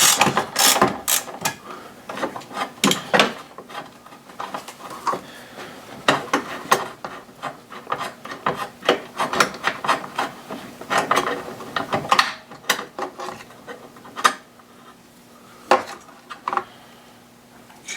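Ratchet wrench clicking in irregular runs as a bolt is worked loose, with a few louder metal knocks and clinks.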